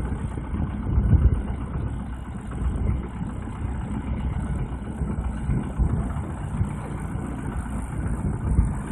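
Engine and hydraulics of a solar spiral pile rig running steadily, low-pitched and uneven, with a louder swell about a second in.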